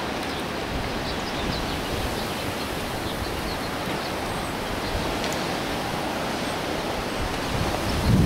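Steady wind rushing over the microphone, with faint light knocks now and then from a hanging wind chime of white tubes. A louder gust buffets the microphone near the end.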